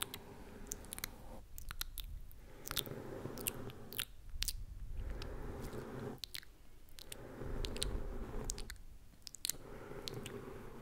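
A fluffy makeup brush sweeping over the foam windscreen of a Zoom recorder's microphone, four long swishes about two seconds apart. Wet mouth clicks and lip smacks are scattered between the strokes.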